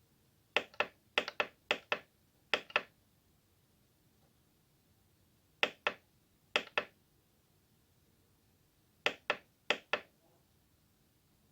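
Front-panel buttons of a Korg N264 synthesizer being pressed while paging through a sound's parameters. Each press gives a quick pair of clicks, down and up. There are eight presses: four close together at the start, two about halfway through, and two near the end.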